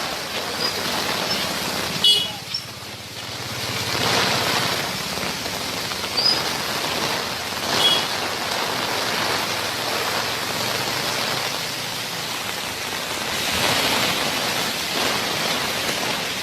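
Heavy rain pouring steadily amid street traffic, with two short high toots about two and eight seconds in.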